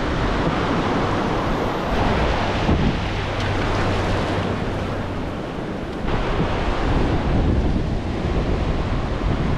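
Ocean surf washing in over the shallow sand, a steady rush of water with wind buffeting the microphone.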